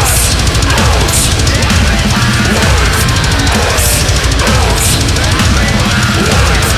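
Industrial death metal song playing loud: fast, dense drumming with heavy bass drum under distorted guitars, and a cymbal crash roughly once a second.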